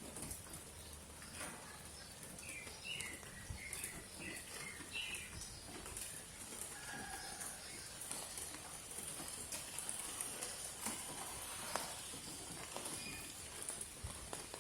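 Steady rain falling in a courtyard: an even hiss with irregular drips tapping on hard surfaces. A few short bird chirps come about two to five seconds in.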